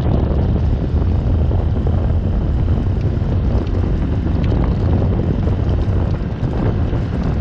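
Gasoline-engined Club Car golf cart driving along a paved road, its engine running steadily, with wind buffeting the microphone.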